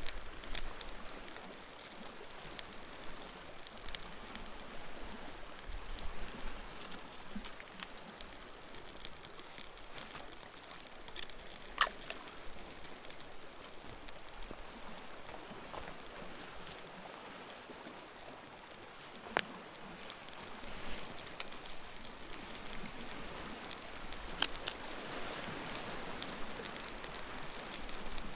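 Small campfire of bark and twigs catching: a faint steady hiss with scattered sharp crackles and pops, three of them standing out clearly.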